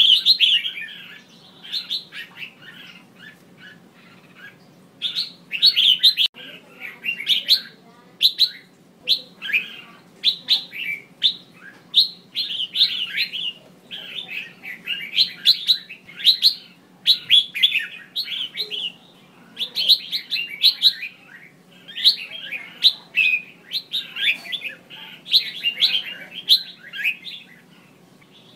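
Female red-whiskered bulbul giving rapid, chattering calls in short repeated phrases, with a quieter spell a few seconds in. This is a call used to provoke male bulbuls into singing.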